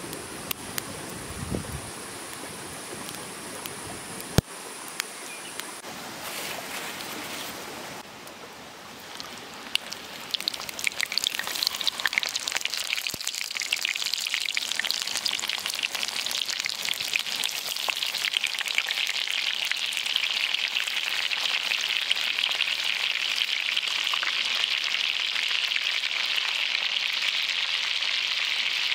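Wood fire crackling softly, then from about ten seconds in, hot oil in a wok sizzles as hollowed bitter melon rings fry in it. The sizzle swells and settles into a loud, steady, dense crackle.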